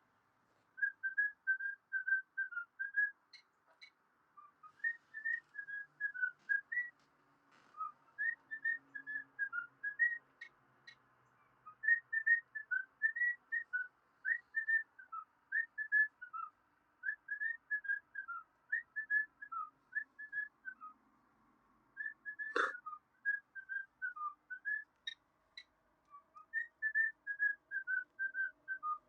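Whistling: a quick run of short, clear notes in short phrases, like a whistled tune, with a single sharp knock about three quarters of the way through.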